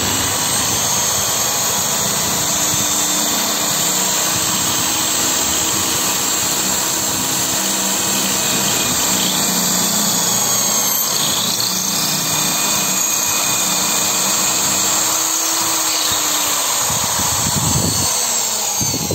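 Electric drill running steadily as it bores a hole into the wall for a wall anchor, slowing down near the end.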